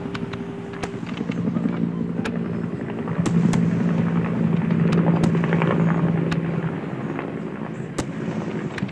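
Fireworks display: sharp reports of aerial shells bursting, about ten scattered through, over a continuous low rumble with a held low hum that swells in the middle.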